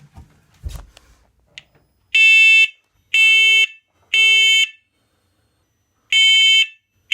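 Combination smoke and carbon monoxide alarm in test mode, sounding its smoke evacuation signal: loud, high-pitched beeps in the three-beep pattern, three about a second apart, a pause, then the next set starting near the end. A few faint knocks come before the first beep.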